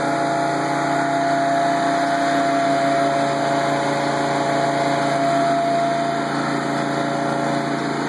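Ramrod Taskmaster 1150 mini track loader's engine running steadily at about 3,400 rpm, as its tachometer reads.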